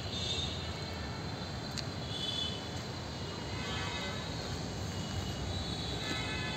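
Outdoor background noise: a steady low rumble, with faint short high-pitched calls now and then.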